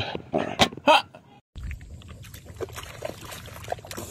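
A corgi barks several times in quick, sharp bursts. After a short break about a second and a half in, wet squelching and splashing follow as a dog wallows in a muddy puddle.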